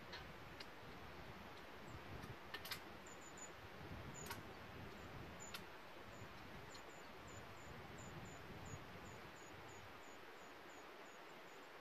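Faint outdoor ambience: a steady airy hiss with a few sharp, distant clicks and clanks from gear being loaded onto the back of a Jeep. Through the second half a short, high chirp repeats about three times a second.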